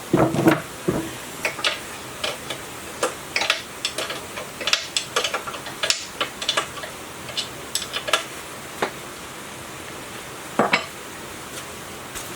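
Irregular light clinking and tapping of hard objects being handled, several small strikes a second, over a steady low hiss.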